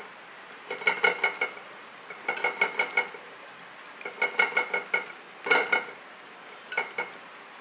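Fingers patting a ball of soft vada dough flat on an oiled plastic sheet over a stone board: about five short bursts of quick pats, each pat with a light clinking ring.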